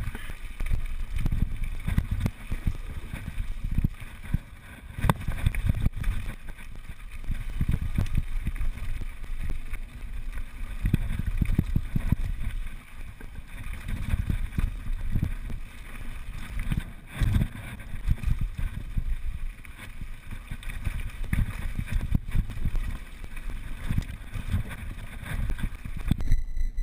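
Wind buffeting the microphone of a rider-worn action camera during a fast mountain bike descent on a gravel trail, a gusting low rumble, with the knocks and rattles of the bike going over bumps.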